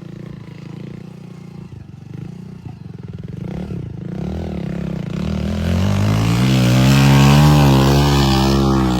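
Heavy machine's diesel engine running steadily, then from about five seconds in revving up under load and growing much louder, its pitch rising and wavering.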